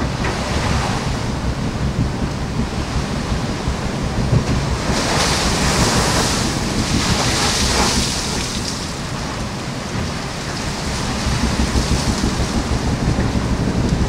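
Sea water rushing past a sailing ship under way, with wind buffeting the microphone. A louder hiss of breaking water rises about five seconds in and fades about three seconds later.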